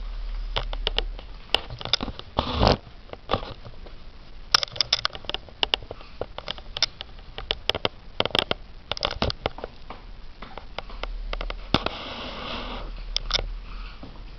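A small kitten sniffing at close range, amid many short, sharp clicks and taps. Two longer breathy stretches come about two and a half seconds in and again around twelve seconds in.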